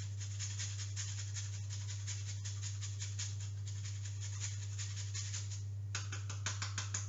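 Pecorino cheese rubbed on a hand grater, making quick rhythmic rasping strokes about four a second, with a brief pause about six seconds in, over a steady low hum.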